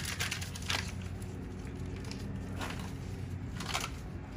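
Puppies play-fighting, with a few short crinkling, crunching scuffles about a second in, near the middle and near the end.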